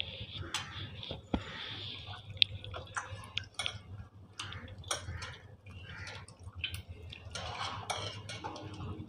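Hands squeezing and mashing soaked tamarind and tomatoes in water in a bowl, dissolving them for rasam: irregular wet squeezing and splashing with small clicks and knocks against the vessel.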